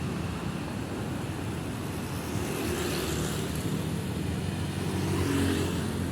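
Busy city road traffic: a steady low rumble of car and motorbike engines, with a vehicle passing close about three seconds in and another, louder one near the end.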